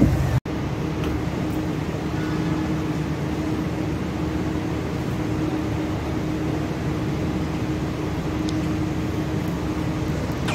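Steady machine hum of a stationary passenger train standing at a platform, with one constant tone, the kind of sound made by the coaches' air-conditioning and electrical equipment. Just after a brief dropout about half a second in, the hum runs on unchanged, with a few faint ticks.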